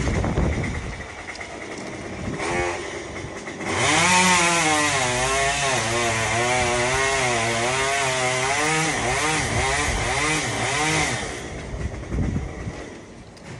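Chainsaw revved briefly, then run hard for about seven seconds, its engine pitch wavering as it cuts through a branch, then let off.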